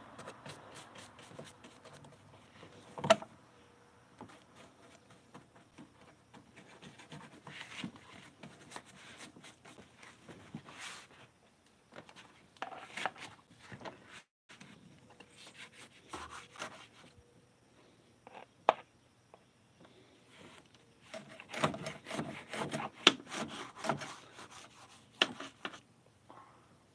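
Cloth rubbing and brushing against the microphone, with scattered clicks and a few sharp knocks, the loudest about three seconds in.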